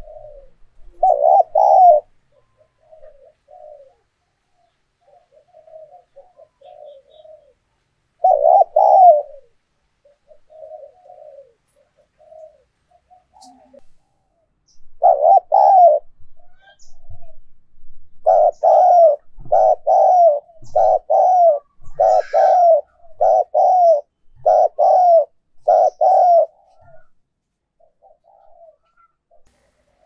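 Spotted dove cooing: a few loud short coo phrases with softer coos between, then a quick regular run of about nine coos near the end. Faint high chirps sound during the run.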